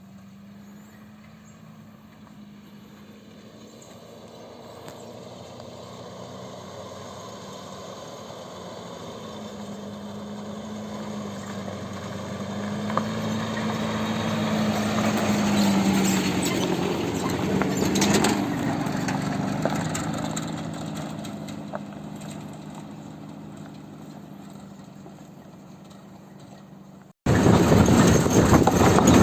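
A motor vehicle's engine passing by: it grows steadily louder for about fifteen seconds, peaks, and its pitch drops slightly as it goes past, then it fades away. Near the end the sound cuts off suddenly into a louder, steady rumble.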